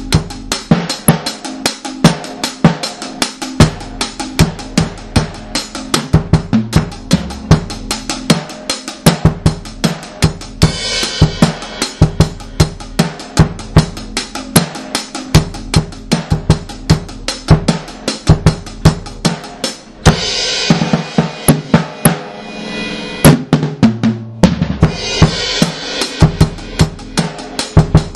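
Reggae one-drop dub drum track: bass drum and snare or rimshot hits in a steady rhythm, with a few stretches of hissing cymbal wash.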